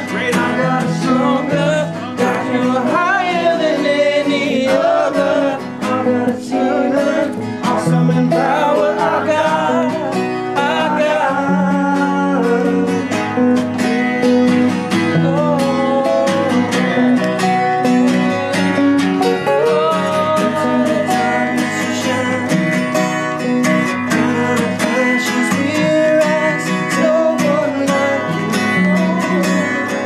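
A song: a singing voice over steadily strummed and picked acoustic guitar.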